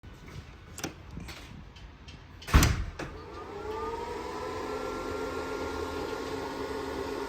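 A few clicks and one loud clunk, then an electric motor driven by a Delta VFD-B inverter starts and ramps up, its whine rising in pitch and settling after about a second into a steady running tone.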